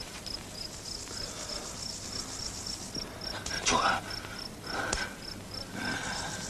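Field crickets chirping steadily, a high, even pulse of about three to four chirps a second.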